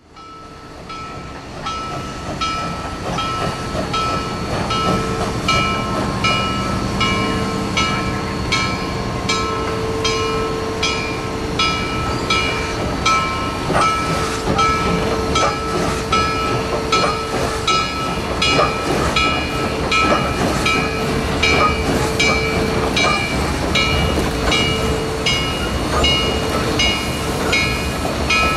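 2-8-0 Consolidation steam locomotive working a train, its exhaust chuffing in an even beat of about two chuffs a second over a steady high ringing tone and low rumble; the sound fades in at the start.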